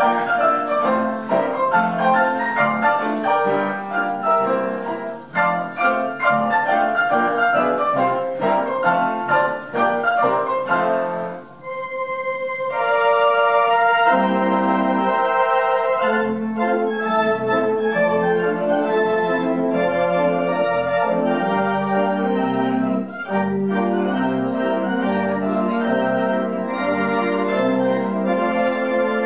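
A self-playing player piano runs through a lively passage of quick, short notes. About twelve seconds in it breaks off briefly. Then a pipe organ takes over with sustained chords over a pulsing bass.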